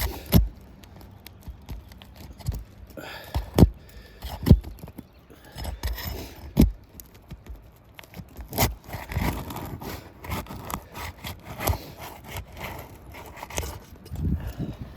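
Asphalt three-tab shingles being pried loose with a roofing snake: irregular scraping and crackling as the seal strips tear free, with sharp clicks and knocks of the tool against the shingles.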